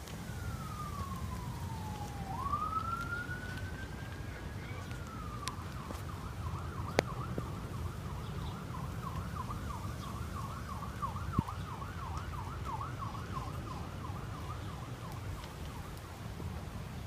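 Emergency vehicle siren: a slow wail that falls and then rises, switching about five seconds in to a rapid yelp that warbles a few times a second. Underneath is a steady low rumble, with a couple of sharp clicks.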